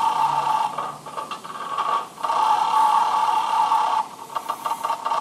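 Electronic sound effects from a coin-operated roulette game machine: a steady two-note electronic tone that breaks off briefly about two seconds in, then gives way to quick ticking about four seconds in.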